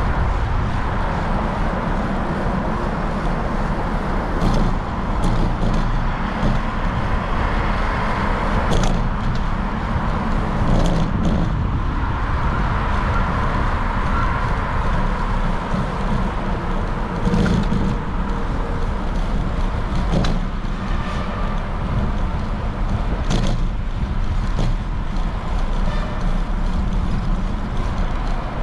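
Street traffic with cars passing, heard from a bicycle riding along the road, under a steady low rumble and with scattered short clicks and knocks.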